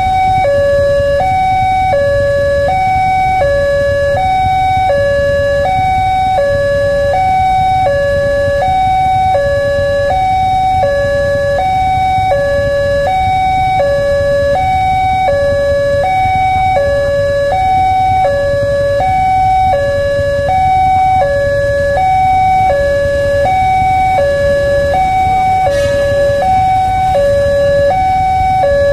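Railway level-crossing warning siren sounding a steady two-tone hi-lo wail, switching pitch about every half second, over a low rumble.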